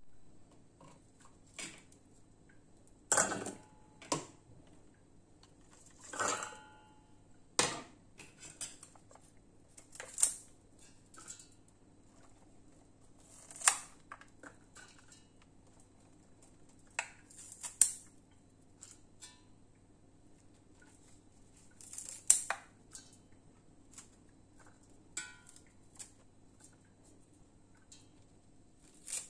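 Scattered knocks and clinks as shallots and garlic cloves are handled and dropped into a stainless steel chopper bowl. About a dozen irregular knocks over a faint steady hum; the grinder's motor is not running.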